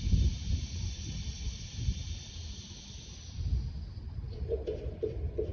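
Steady hiss of propane flowing through a valve as the tank valve is cracked open, over a low rumble; the hiss fades out about three and a half seconds in.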